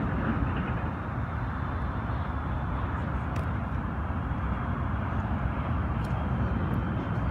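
Setra coach's diesel engine idling with a steady low rumble.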